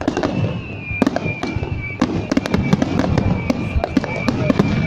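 Fireworks going off in quick succession: many sharp bangs and crackles, several a second, over a continuous rumble, with a steady high tone running underneath.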